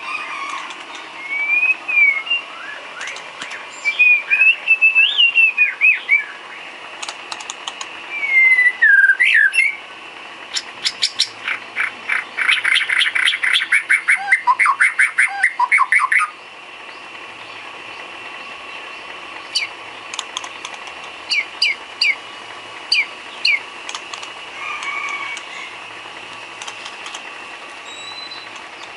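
White-rumped shama (murai batu) singing. It gives varied whistled phrases that glide up and down, then a rapid run of repeated notes lasting about five seconds, then a few scattered short notes before falling quiet.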